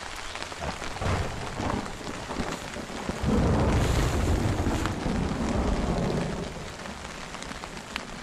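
Steady rain falling on a tarp, with a rumble of thunder that starts suddenly about three seconds in and fades out a few seconds later.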